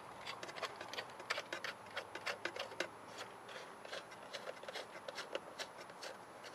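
Faint clicks and light scrapes of a cable plug being worked into the socket on the back of a small metal-cased radio, with hands handling the case. There are many quick ticks, thickest in the first few seconds.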